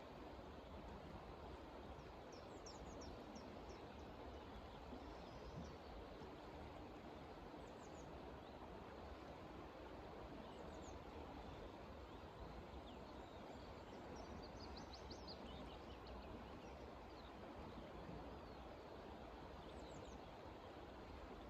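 Faint outdoor ambience: a steady low hiss with small birds giving short, high chirps here and there, including a quick run of chirps about two-thirds of the way through.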